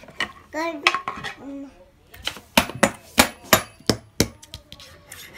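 A toddler's brief vocal sound, then a quick run of about nine sharp knocks and clacks on a wooden high-chair tray over about two seconds.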